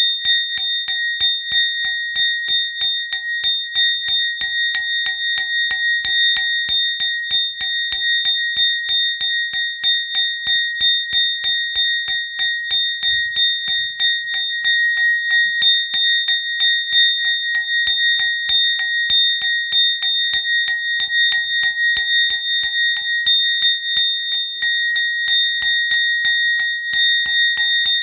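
A small bell rung rapidly and without pause, several strokes a second, with a clear high ring that never dies away between strokes.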